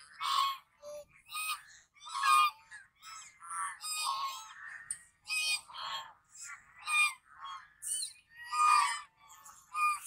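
White domestic geese honking: a run of short honks from several birds, coming one after another about every half second to a second.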